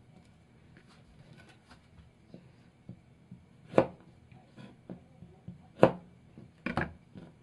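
Kitchen knife cutting the stem ends off okra on a wooden cutting board: a few sharp knocks of the blade on the board, the loudest about four and six seconds in, then a quick double knock just before the end, with small clicks of handling between.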